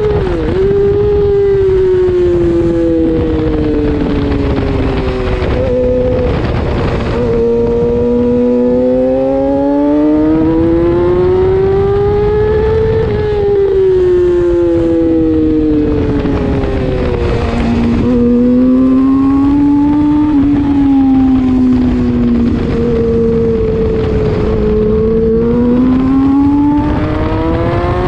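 600cc racing motorcycle engine heard from an onboard camera at speed, its revs climbing and falling several times over a few seconds each as the bike accelerates and slows through turns, with brief dips in pitch at gear changes. Steady wind rush runs under it.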